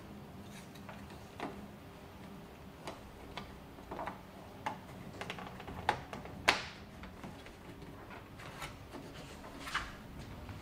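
Scattered small plastic clicks and taps as a plastic trim cover is pressed and snapped onto a side-mirror mount on a pickup truck's door. The sharpest click comes about six and a half seconds in.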